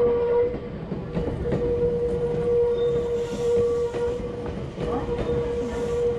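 Electric train running slowly through a station: a steady whine with wheel clicks and rumble over the rails.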